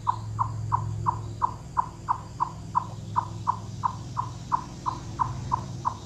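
Eastern chipmunk giving its alarm chip call: a long, even series of sharp single-pitched chips, about three a second, over a low steady hum. The call warns other chipmunks of a predator on the ground or a hawk or owl.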